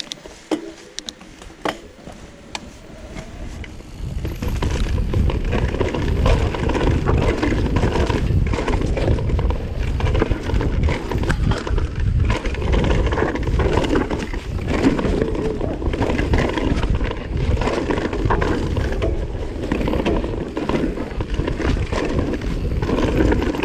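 Vitus mountain bike riding fast down a rough dirt trail, its tyres and frame rattling. A few light clicks at first, then a loud continuous riding noise from about four seconds in.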